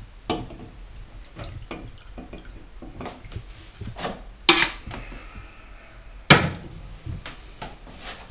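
Kitchen clatter of a kettle, cups and crockery being handled on a counter: a run of small knocks and clinks, with two sharper clanks about four and a half and six seconds in, and a brief trickle of poured water between them.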